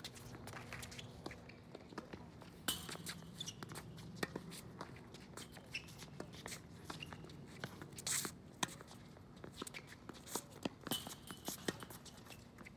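Tennis rally on a hard court: sharp pops of the ball coming off racket strings and bouncing, the loudest right at the start and again a few times later, with scuffs of sneakers on the court between shots.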